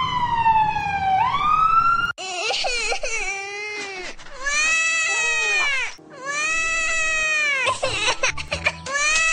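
An ambulance siren wails, its pitch falling and then sweeping back up, and cuts off about two seconds in. After that a cartoon child cries in long, drawn-out wails broken by short sobbing gasps.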